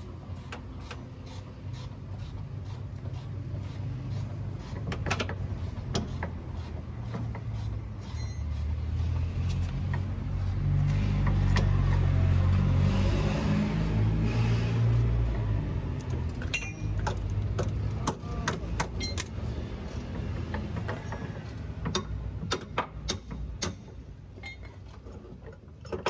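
Irregular metallic clicks and clinks of a hand wrench working bolts on a car's suspension from underneath. A low vehicle rumble swells up in the middle, becoming the loudest sound, then fades.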